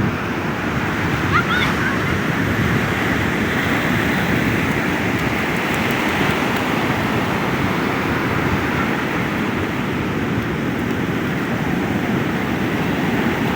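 Ocean surf washing and breaking onto a beach in a continuous, loud rush of water that swells and eases gently.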